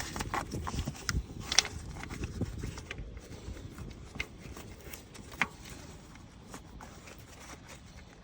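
Hands working by feel in a tight engine bay around the camshaft position sensor bore: scattered light knocks, clicks and rubbing, busiest in the first two seconds, with a sharp click about a second and a half in and another about five and a half seconds in.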